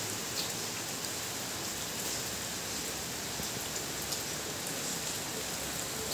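Steady rain falling on a wet gravel yard and puddles, with a few individual drops ticking nearby.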